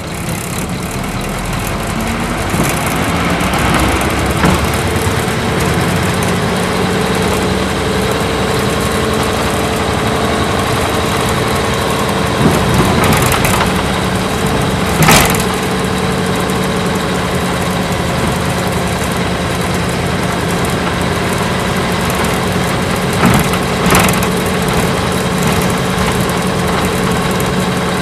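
Isuzu Cubic bus's V8 diesel engine heard from inside the cabin. It pulls away with its note rising over the first few seconds, then runs steadily under load. A few sharp knocks come through around the middle and again near the end.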